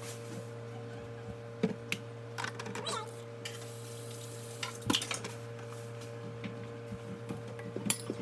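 Scattered light clicks and knocks of things being handled, over a steady electrical hum, with a faint voice about three seconds in.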